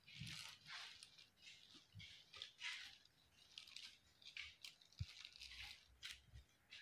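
Faint repeated scraping strokes of a large knife cutting through a block of homemade lye soap, with soft thumps about 2 and 5 seconds in.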